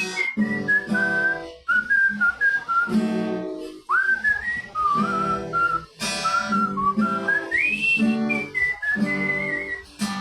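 A whistled melody over a plucked acoustic guitar, the whistle sliding up in pitch about four seconds in and again near eight seconds, with short breaks between phrases.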